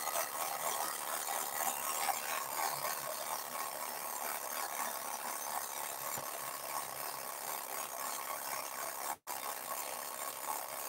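Tin toy with airplanes circling a globe, its mechanism running with a steady whirring rattle.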